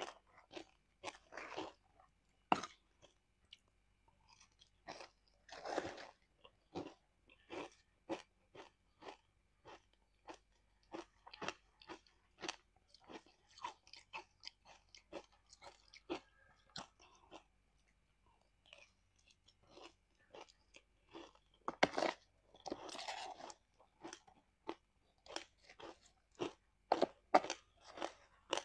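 Ice being bitten and chewed close to a clip-on microphone: a quick, irregular run of sharp, crisp crunches, with a couple of longer, noisier stretches of grinding crunch.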